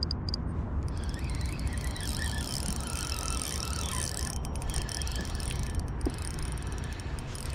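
Fishing reel being cranked steadily, winding in line.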